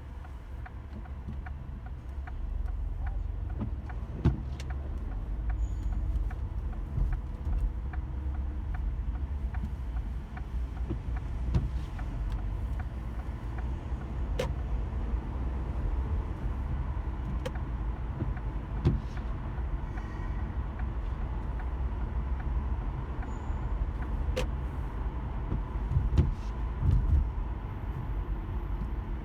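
A car driving in light rain: a steady low rumble of road and engine noise, with scattered sharp ticks and a few louder thumps, one about four seconds in and a cluster near the end.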